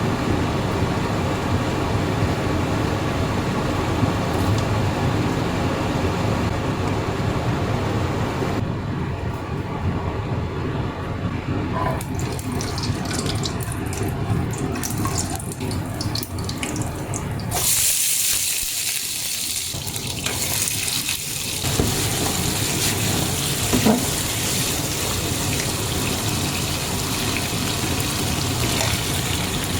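Running water, like a tap into a sink: a steady rushing noise in several cut-together stretches that change abruptly, with a few small clinks.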